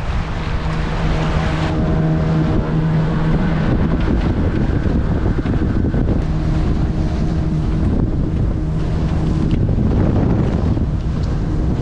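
Motorboat engine running steadily with a constant hum under heavy wind buffeting the microphone, as the boat travels across a lake.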